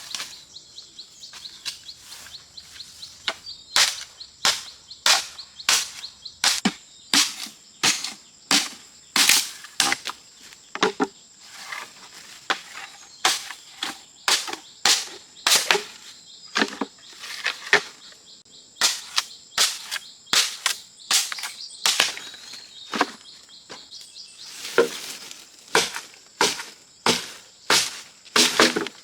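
Irregular series of sharp knocks or strikes, about one to two a second, with a steady high-pitched insect drone behind them.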